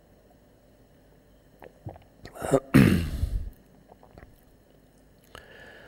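A man coughs: a short burst followed at once by a louder, longer one about two and a half seconds in, with a few faint clicks around it.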